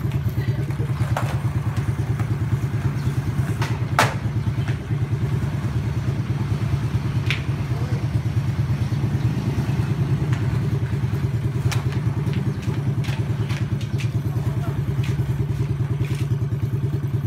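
Small motorcycle engine idling steadily close by, with a few sharp clacks over it, the loudest about four seconds in.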